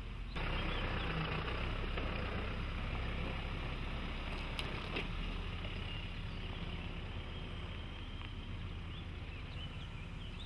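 Toyota Hilux's 2.4-litre four-cylinder turbodiesel running at low revs with a steady hum as the pickup crawls slowly over rough forest ground.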